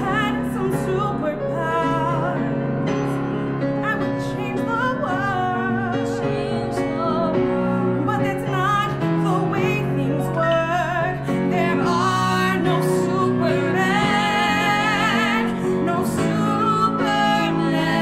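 Two young female voices singing a musical-theatre duet with live piano accompaniment, with wide vibrato on the held notes near the end.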